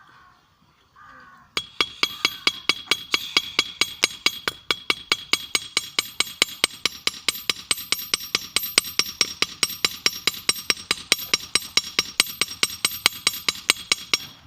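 Hand hammer striking hot steel on a small 25 lb anvil in rapid, even blows, about five a second, each with a bright metallic ring: forging out a screw blade. The hammering starts abruptly about a second and a half in.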